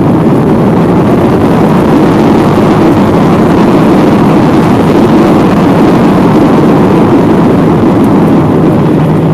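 Jet airliner on its landing rollout on a wet runway, heard from inside the cabin: a loud, steady rushing roar of engines and airflow.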